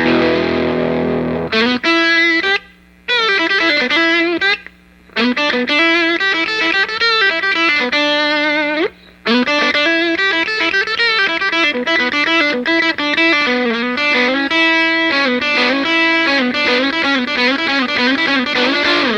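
Electric guitar with distortion playing a solo: a held chord, then a run of single notes with bends and vibrato, broken by three short pauses.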